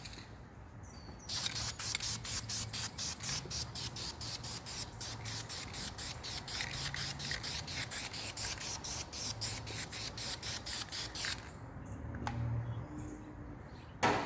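Aerosol spray-paint can hissing as the colour coat goes onto a brake caliper, in quick regular pulses for about ten seconds, then stopping. A short sharp click near the end.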